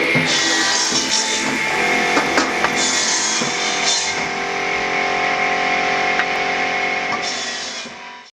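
Background music with guitar, fading out near the end.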